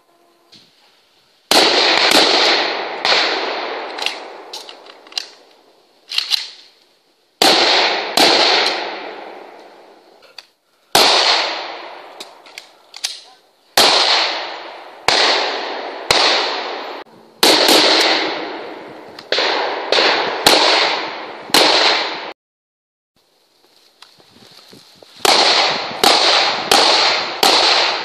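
Gunshots fired in quick strings of single shots, each with a long echoing tail. Several clusters come in turn with short pauses between them, and there is a silent break about two-thirds of the way through.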